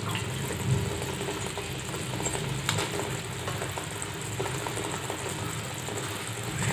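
Grated coconut and jaggery syrup bubbling and sizzling in a pan as the filling cooks down, with small pops and a low steady hum underneath.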